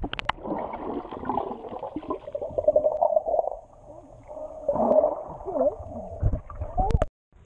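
Muffled gurgling and bubbling of water heard through a camera held under the surface while snorkelling, with dull, wavering sounds in it.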